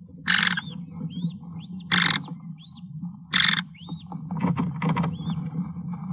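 High, thin peeps from American kestrels in a nest box, each rising then falling and repeated many times. Short, loud scratchy rustles break in four times, over a steady low hum.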